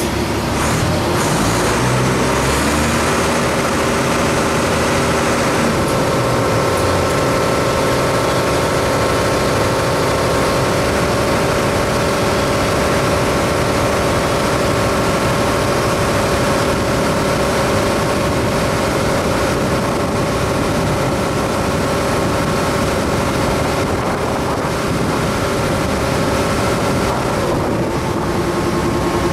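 Ferry engine running steadily under way, a constant drone with several steady tones; the tones shift in the first few seconds as it changes speed, hold steady, then change again near the end.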